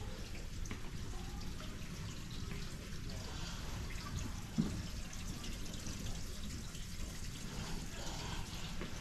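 Steady low indoor hum with faint scattered ticks and clicks, and one short soft thump about halfway through.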